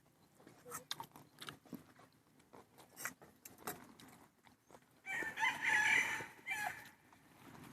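A rooster crowing once, a harsh call of nearly two seconds about five seconds in, after a run of light clicks and taps.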